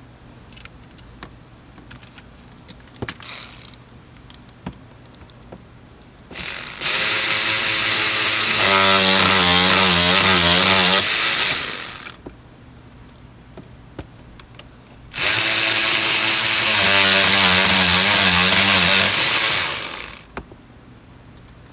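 Cordless power driver running twice, about five seconds each, with its motor pitch wavering as it drives in the steering lock's new security bolts. These are shear-head bolts whose tops snap off once tight. Light handling clicks before and between the two runs.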